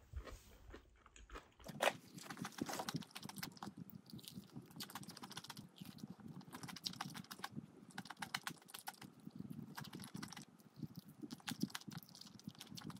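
Close-miked biting into crispy fried chicken: a first crunchy bite about two seconds in, then steady crunching and chewing.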